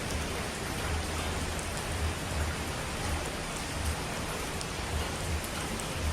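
Steady rushing noise of heavily falling water, with a low rumble that swells and fades every second or so.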